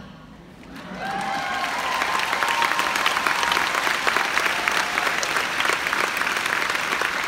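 Large audience applauding, building up over about the first second and then holding steady.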